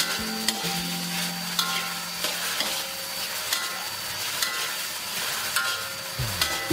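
Beef and diced vegetables sizzling in a metal wok while a spatula stirs and scrapes them, with frequent irregular clicks of the spatula against the pan.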